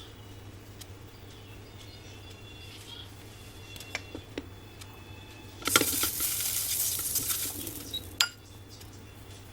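Kitchen cookware and utensil sounds: a few light clinks, then a loud hissing, scraping noise lasting about two and a half seconds, ending with a sharp click.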